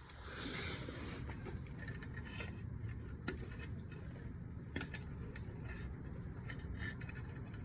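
Faint scattered clicks and light scrapes of metal rear drum-brake parts and hand tools being handled, over a steady low rumble.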